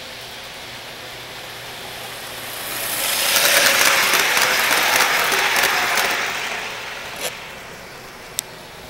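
O-scale model train passing close by, its wheels rattling and clicking on the track. The sound swells, is loudest for about three seconds and then fades away. Two sharp clicks follow near the end.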